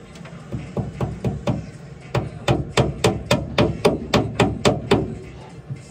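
Hammering: a handful of lighter blows, a short pause, then a run of about a dozen harder, evenly spaced blows at roughly four a second that stops shortly before the end.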